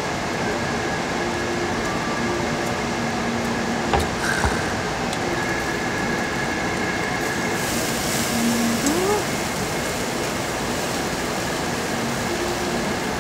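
Pork ribs sizzling on a tabletop charcoal grill under a running extraction hood: a steady rushing noise that grows brighter and hissier about halfway through, with a single sharp click about four seconds in.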